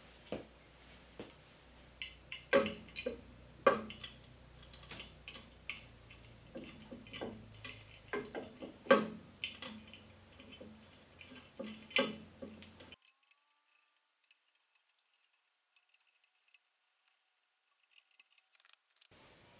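Scattered light clicks, taps and clinks of metal parts being handled as a dust collection port is fitted and screwed onto a surface grinder's wheel guard, with a faint hum underneath. The handling sounds stop sharply about two-thirds of the way through, leaving near silence.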